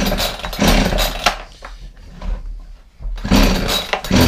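Homelite two-stroke chainsaw being pull-started: the recoil starter rope is yanked out about four times, with a pause in the middle, and the engine turns over with each pull but does not fire. It won't catch because its on/off switch is still off.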